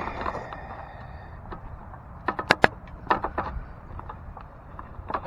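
Sharp clicks and light knocks of tools and metal parts being handled while working on a van's fuel pump assembly, the loudest a quick cluster a little over two seconds in, with a few more scattered after.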